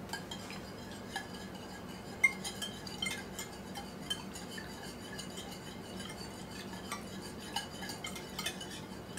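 Wire whisk stirring a liquid marinade in a glass bowl, with quick, irregular light clinks and scrapes of the wires against the glass.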